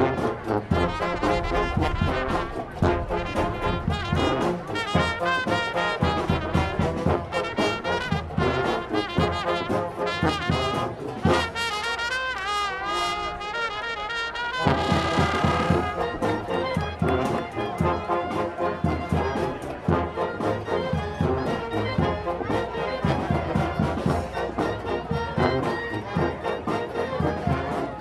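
A brass marching band playing, trumpets and trombones over a steady drum beat. About halfway through the sound thins to a few wavering horn lines, then the full band comes back in loud.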